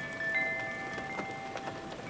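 Steady rain with scattered drips. Over it sound several clear, chime-like ringing notes, each starting with a tap and holding for up to a second or so, overlapping one another.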